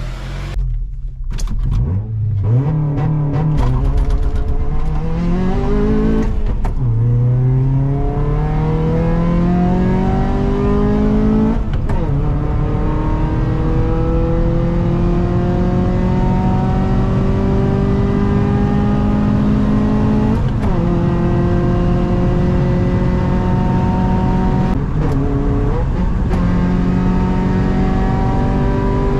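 Honda CR-V's 2.4-litre K24Z1 four-cylinder, catalytic converter gutted, pulling hard under acceleration: the engine note climbs steadily and drops back at each gear change, four times.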